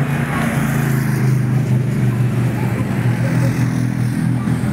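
Motorcycle engine running as a race-escort motorbike rides past, a loud steady engine note.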